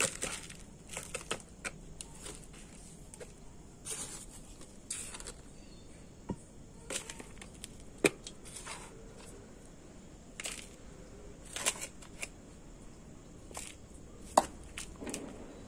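Handfuls of potting mix (red soil, sand and organic fertilizer) scooped and dropped into a plastic pot: soft scraping and rustling with a few sharper clicks and knocks at uneven intervals.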